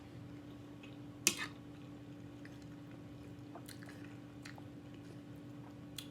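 A person chewing and eating close to the microphone, a mouthful of shrimp and scallop fettuccine Alfredo, with a sharp wet mouth click about a second in and a few fainter clicks later, over a faint steady hum.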